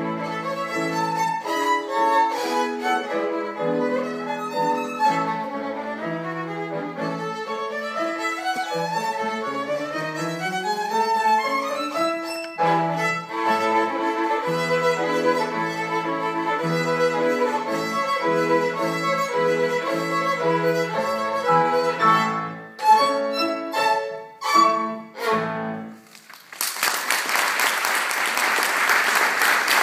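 Violin and piano playing a classical piece, closing with a string of short, loud, separated chords. Audience applause starts a few seconds before the end.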